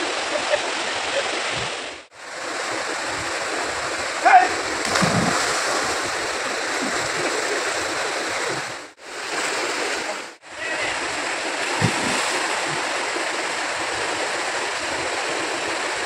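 Mountain stream cascading over rocks into a pool: a steady rush of water, broken by three short drops to silence, with a brief louder sound about four seconds in.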